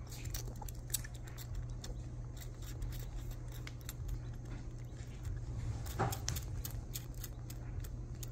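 Young squirrel suckling milk from a plastic feeding syringe: a run of small, irregular clicks and smacks from its mouth working the syringe tip, over a low steady hum, with one louder click about six seconds in.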